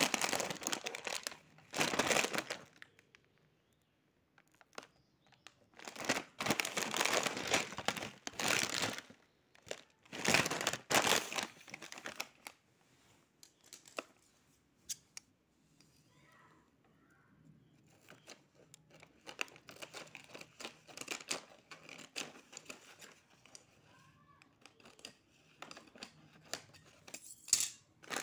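Plastic-foil potato chip packets crinkling as they are handled, in repeated bursts of a second or more with quiet gaps between.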